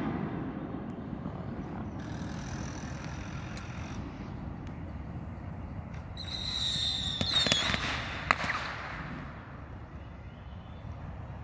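Consumer fireworks going off on the ground: a shrill whistle starts about six seconds in and lasts about a second and a half, followed by a handful of sharp pops and cracks, the loudest a little after eight seconds. A bang from just before is dying away at the start.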